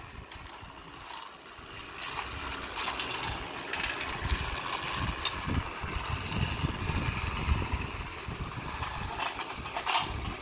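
Small toy train engine running along plastic track, with a low rumble and scattered plastic clicks and clatters.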